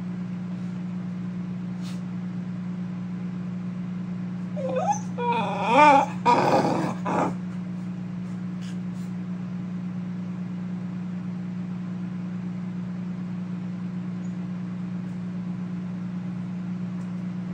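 Keeshond whining in a temper tantrum: a burst of wavering cries that bend up and down in pitch, about five to seven seconds in. A steady low hum runs underneath.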